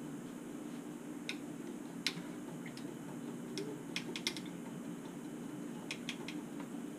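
Scattered light clicks and taps, a few in quick clusters, as paintbrushes are handled among the brush pot and jars beside the palette, over a steady low hum.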